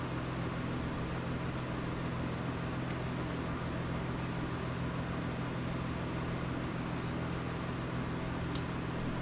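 Steady low machine hum with a hiss, with a faint click about three seconds in and another near the end.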